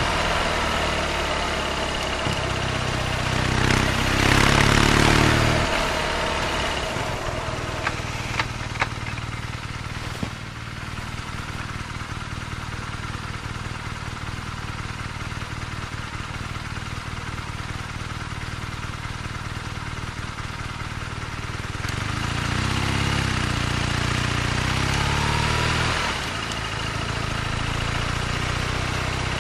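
BMW R nineT's air/oil-cooled boxer twin engine: it pulls up briefly a few seconds in, then settles into a long, quieter steady idle, and revs up again to pull away after about twenty seconds. A few sharp clicks sound about eight seconds in.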